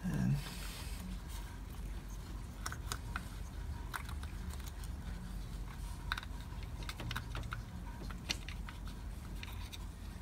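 Small irregular clicks and light taps of a screwdriver and fingers working a new cam cap plug into an engine's cylinder head, over a low steady hum.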